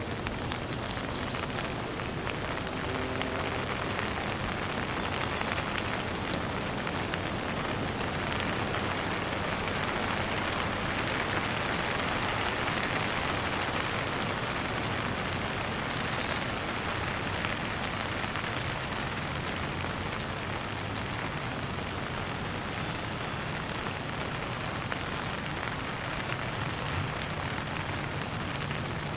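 Steady rain falling, a dense patter of drops over an even hiss that swells slightly in the middle.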